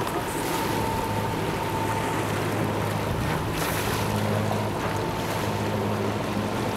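Motor cruiser's engine running steadily as the boat moves off, a low hum over the churn of its propeller wash in the water.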